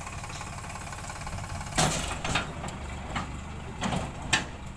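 Tractor engine running steadily while its tipping trailer lifts and dumps a load of soil, with short bursts of clattering knocks about two seconds in and again near the end as clods spill out of the bed.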